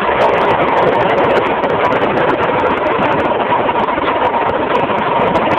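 Yamaha KT100 single-cylinder two-stroke kart engine running steadily and loud.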